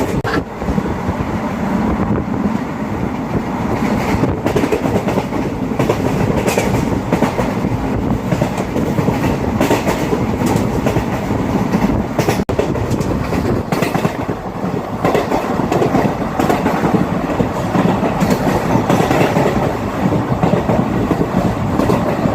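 ICF passenger coach running at speed, heard from onboard: a steady loud rumble of wheels on rail with repeated clicks and clatter as the wheels pass over rail joints.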